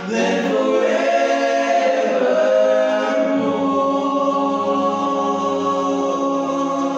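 Male vocal group of five singing a cappella in close harmony. A low bass part comes in about three and a half seconds in, and the voices then hold a long chord.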